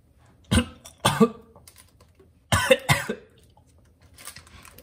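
A man coughing hard on a mouthful of dry ground cinnamon in the cinnamon challenge: two fits of harsh coughs about two seconds apart.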